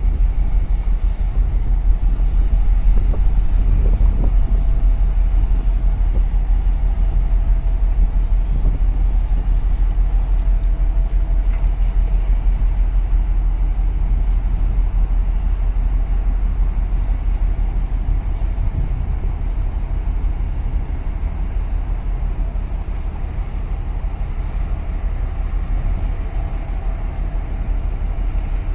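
Steady low rumble of a ship's engine on the water, mixed with uneven wind buffeting on the microphone and a faint steady hum above it.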